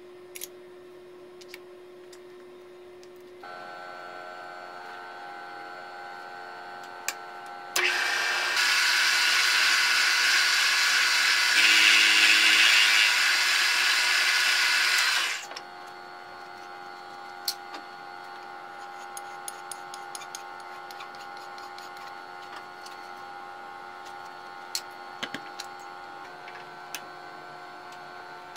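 Tormach CNC mill with a Super Fly fly cutter: the spindle comes up to a higher, steady several-tone running sound about three seconds in, then for about seven seconds a much louder, noisy cut as the high-speed steel insert faces an aluminum block, after which the spindle runs on with scattered light clicks.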